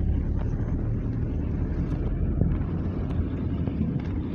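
Steady low rumble of a vehicle running, engine and road noise without change.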